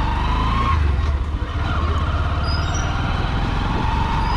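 Honda SP125 motorcycle's single-cylinder engine running as it rides slowly along a street, with a low rumble of engine and wind and a steady high whine that fades about a second in and comes back near the end.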